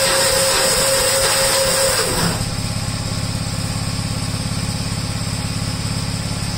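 Gravely tractor engine cranked over by its starter for about two seconds, then catching and running steadily at idle. This is a cold start after the engine has sat unused for about a month in freezing weather.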